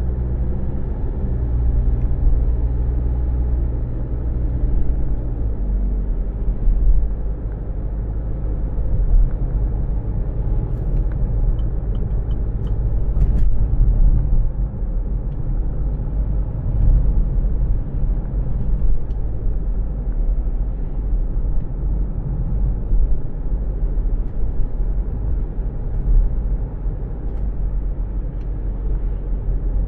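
Steady low rumble of a car heard from inside the cabin, engine and road noise with no speech. About halfway through there are a few short, light ticks.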